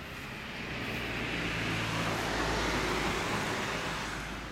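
A road vehicle going past: its noise swells to a peak about halfway through and then fades away.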